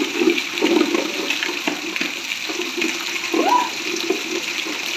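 Heavy rain pouring steadily, with water sloshing and splashing in a shallow concrete trough as children splash in it.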